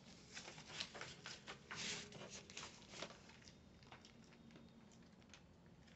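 Faint rustling and flicking of a comic book's paper pages as it is leafed through by hand: a quick run of soft rustles over the first three seconds, then only a few fainter ones.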